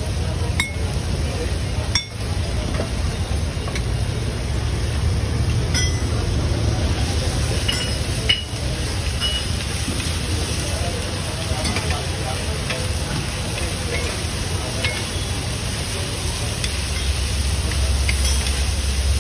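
Metal spatula scraping and stirring noodles and sauce on a hot flat cast-iron griddle, with steady sizzling and scattered clinks of the spatula against the iron. A low steady hum runs underneath.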